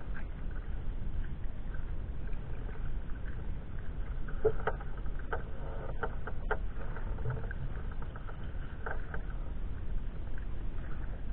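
Sea kayak being paddled: the paddle blades dip and splash and water patters off them, in a cluster of short strokes in the middle and again near the end, over a steady low rumble.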